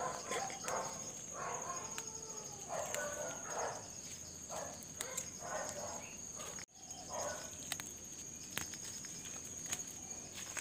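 Steady, high-pitched insect trill, with faint, indistinct voice-like calls through the first seven seconds. The sound drops out briefly about two-thirds of the way in.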